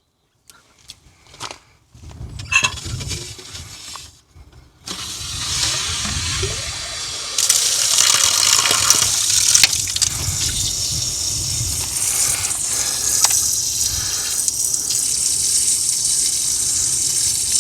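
Water rushing steadily from a newly installed Woodford frost-free yard hydrant as it is tested. It starts about five seconds in after a few light knocks, grows louder a couple of seconds later, and then runs evenly.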